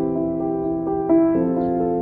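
Background instrumental music: calm keyboard chords, held notes that change roughly every half second.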